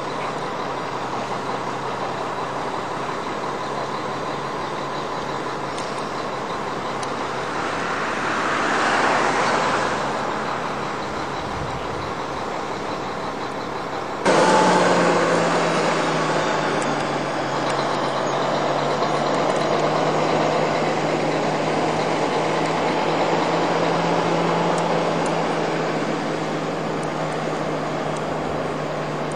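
Truck engines running. Something passes by, swelling and fading about nine seconds in. About halfway through, a louder steady engine drone cuts in suddenly.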